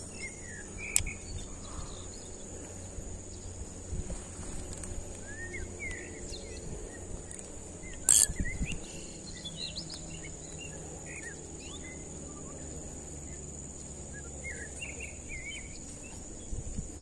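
Tropical forest insects keep up a steady high-pitched drone while birds give short scattered chirping calls. There is a faint low rumble of handling or movement, with a brief click about a second in and a sharper, louder click about eight seconds in.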